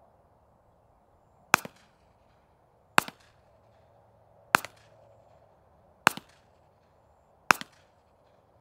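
Unsuppressed Ruger PC Carbine 9mm carbine firing five shots, evenly spaced about a second and a half apart, heard from about 50 yards, each crack followed by a short echo.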